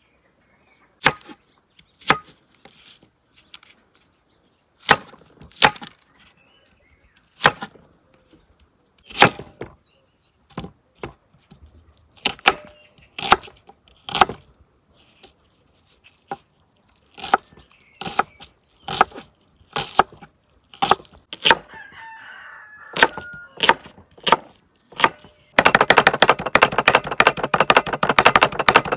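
A series of sharp knocks at irregular intervals, about one or two a second, like chopping. About three and a half seconds before the end, a dense, rapid clatter takes over.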